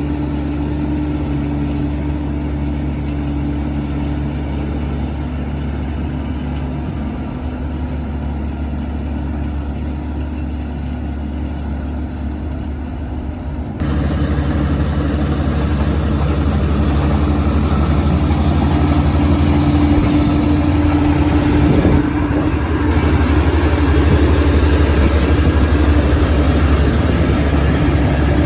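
Kubota combine harvester running steadily while it harvests rice, its diesel engine a steady drone under a steady hum. About halfway through it turns suddenly louder and brighter.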